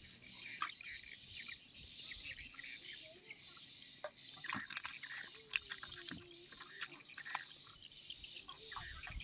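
Outdoor riverside ambience: a steady high chirping of birds and insects, with a cluster of sharp clicks about halfway through.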